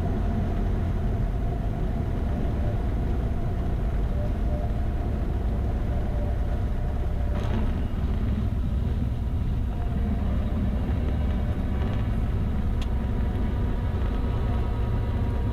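Cessna 172's piston engine and propeller droning steadily in the cockpit, with a low rumble of airflow underneath and no sharp events.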